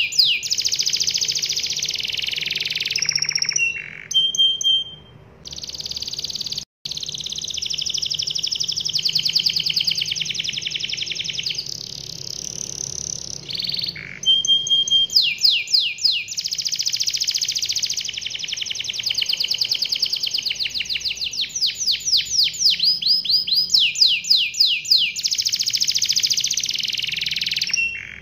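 Yellow domestic canary singing a long, continuous song of fast rolling trills, broken now and then by short, clear whistled notes between phrases.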